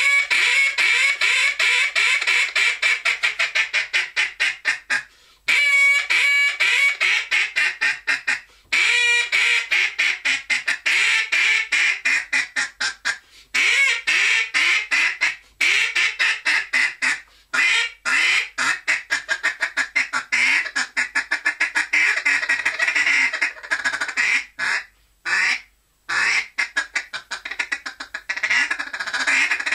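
Cadence duck call blown as a mallard hen in a hunting calling sequence: hail call, greeting, landing and comeback quacks and feeding calls. Strings of quacks are broken by short pauses, turning to fast, dense feed chatter in the second half.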